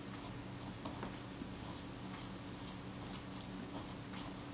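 Scalpel blade scraping and prying under the thin, glued-down leather covering on the bottom plate of a Kodak Retina II camera, in short scratchy strokes about twice a second, over a faint steady hum.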